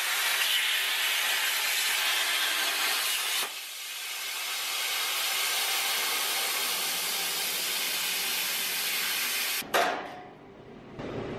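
Plasma cutter arc hissing as the torch cuts thin sheet steel, stopping about three and a half seconds in. The torch's air keeps hissing afterwards and cuts off abruptly with a click near the end.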